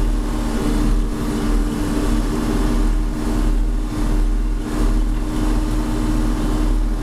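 John Deere 4630 tractor's turbocharged six-cylinder diesel running steadily under load while pulling a chisel plow, heard from inside the cab.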